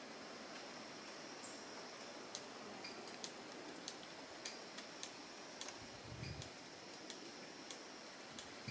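Faint forest ambience: a steady hiss under a thin, high, steady tone, with scattered sharp ticks every half second or so. A soft low thump comes about six seconds in.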